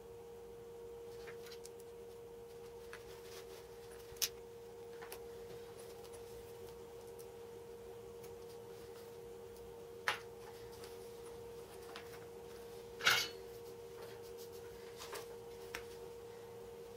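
Small handling sounds of a circuit board and wires on a cutting mat: a few sharp clicks and taps, the loudest about three-quarters of the way through. A steady, faint high-pitched tone lies under them.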